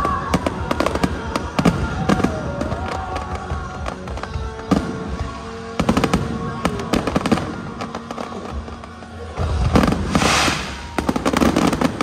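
Fireworks bursting and crackling in quick, irregular bangs over music, with a dense, louder volley near the end.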